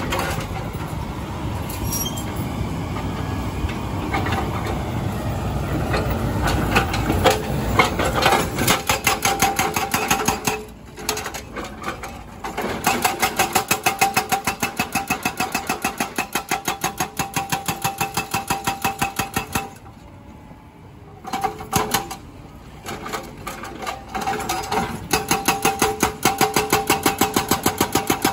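Excavator-mounted hydraulic breaker hammering concrete road paving in a rapid, even train of blows, over the excavator's diesel engine running. For the first several seconds only the engine runs; the hammering then starts and stops twice for a second or two before resuming.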